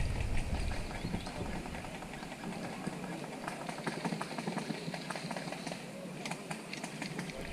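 Scattered small clicks and rustles at an irregular pace, over a low rumble that fades out about a second and a half in and comes back near the end.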